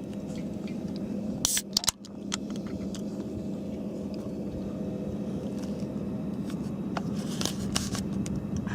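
A boat's motor running with a steady low hum, with a few sharp clicks and rustles of handling about one and a half seconds in and again near the end.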